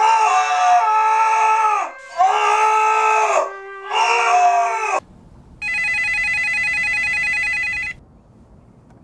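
A man screaming in long drawn-out cries, three of them, each held for a second or more. About five and a half seconds in, a landline telephone rings once for about two seconds with a rapid trill.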